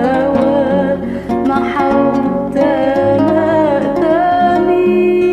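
A woman singing an Arabic hymn in long held notes over acoustic guitar accompaniment.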